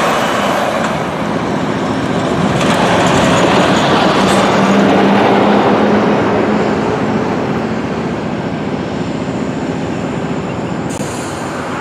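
Semi trucks drive past close by on the road, loudest a few seconds in with a steady engine hum. Underneath them, GE diesel freight locomotives and hopper cars move along the track.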